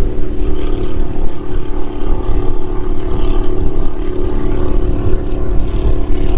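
Strong wind buffeting the microphone, over the steady drone of a distant jet-propelled watercraft's engine.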